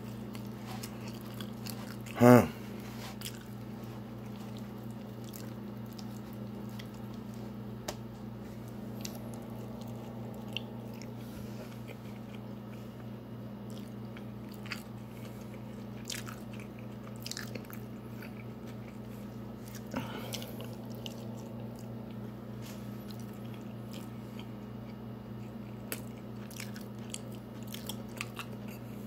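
Close-up eating sounds: biting, chewing and crunching of potato wedges and a taco, with scattered small mouth clicks over a steady low hum. One loud, brief sound about two seconds in.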